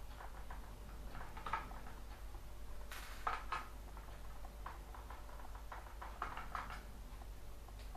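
Small screwdriver clicking and scraping as it turns the screws out of an Acer 3680 laptop's plastic base: scattered light ticks, with a louder clatter about three seconds in.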